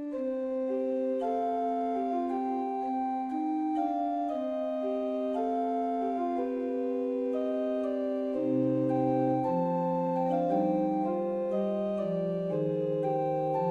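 Background music: slow held keyboard chords, with lower bass notes joining about eight seconds in.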